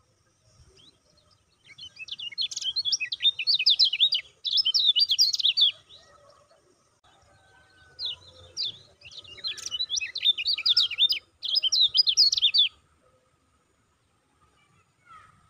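A caged kecial kuning, a yellow white-eye, sings in two bouts of rapid, high chattering 'ciak ciak' notes, each lasting a few seconds with a short pause between them.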